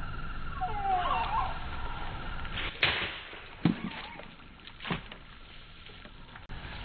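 Cold Steel Voyager XL Kris folding knife swished at and chopping through bottles: a sharp swish-and-cut about three seconds in, the loudest, then two more strikes about a second apart. A bird chirps near the start.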